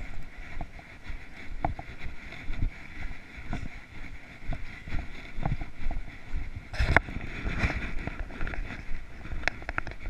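Footsteps walking through dry grass, with clothing and a tracking line rustling against a body-worn camera and some wind on the microphone; a louder rustle about seven seconds in.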